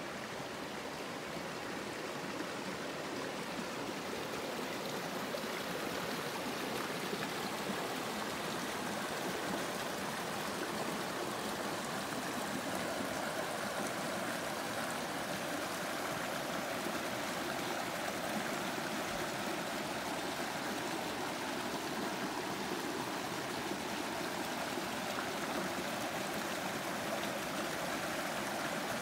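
Shallow rocky stream running over boulders and small riffles, a steady rush and babble of water that grows a little louder in the first few seconds.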